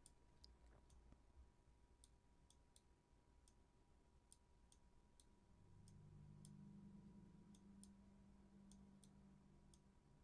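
Near silence with faint computer mouse clicks, about twenty short sharp ticks scattered irregularly, and a faint low hum through the second half.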